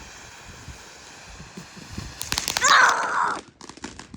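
Consumer firework going off: after a steady hiss, a rapid burst of sharp crackling pops starts about two seconds in, loudest just before three seconds, then thins to scattered pops.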